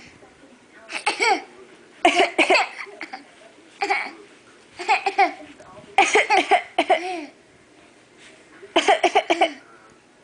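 A person fake-coughing in about six short fits of several quick, voiced coughs each, with pauses between the fits.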